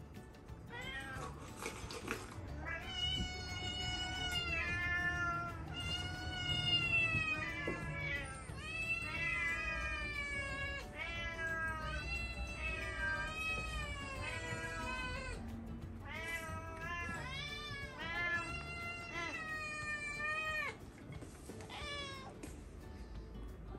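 Several domestic cats meowing insistently, long drawn-out calls one after another and overlapping, begging for food. The meowing falls away near the end.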